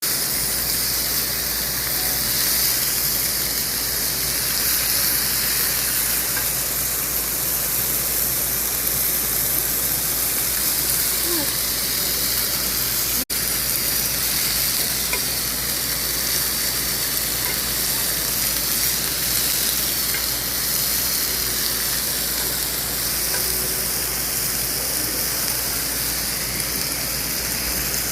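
Meat sizzling steadily as it grills, a continuous frying hiss with a momentary break about halfway through.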